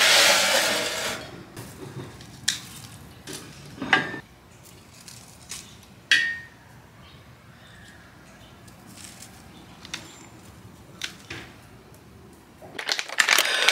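A spoon scraping and clinking against a small bowl during spoon-feeding: a loud scrape at the start, then a few separate clinks, one ringing briefly. A loud rustling noise starts near the end.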